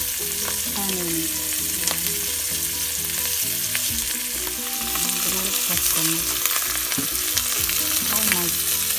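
Oil sizzling steadily in a frying pan, with scattered crackles, as tuyo (salted dried fish) and dried squid fry.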